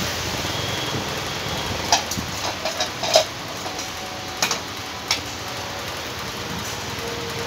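Scattered sharp clicks and knocks, about eight between two and five seconds in, the loudest a little after three seconds: ceiling fan motor parts, a wound stator and the rotor housing, being handled and set down on a concrete floor. A steady hiss runs underneath.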